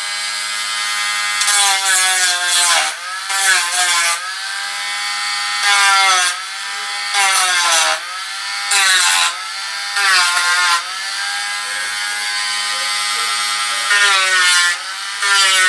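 Dremel Stylus cordless rotary tool with a sanding wheel whining, its motor pitch dropping and a loud rasp rising each time the wheel is pressed against the model's wooden cannon wall, about eight times. It is sanding down built-up putty to prepare the wall for paint.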